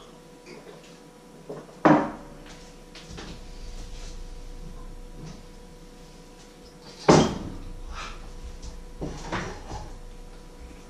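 Kitchen handling sounds: two sharp clunks about five seconds apart as cookware and the oven are handled, then a few lighter knocks near the end, over a faint steady hum.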